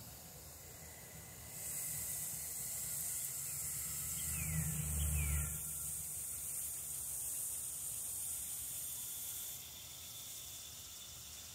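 Garden hose spray wand showering water onto the soil of a freshly planted raised bed: a steady hiss that starts about two seconds in and turns quieter near the end. A brief low rumble about five seconds in.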